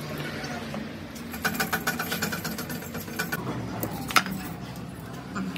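Rapid mechanical rattling for about two seconds in the middle, with scattered metallic clicks and one sharp loud click near the end, over a steady low workshop hum.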